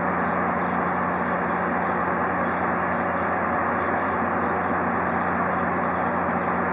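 Locomotive engine idling in a rail yard: a steady low hum with an even hiss over it.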